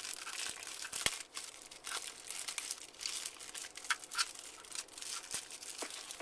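Plastic packaging bag crinkling and rustling as it is opened and handled, with a sharp click about a second in.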